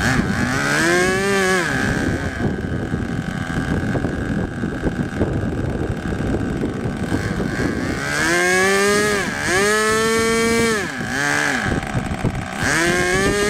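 Small engine of a radio-controlled model boat, run out of the water and revved in short bursts: its pitch sweeps up and falls back once near the start, it runs at a steady lower speed for several seconds, then it is blipped up and down four more times in quick succession.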